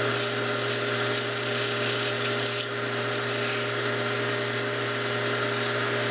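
Sandpaper rubbing by hand against a small wooden wheel rim, smoothing the breakout inside its freshly drilled spoke holes, over a steady machine hum.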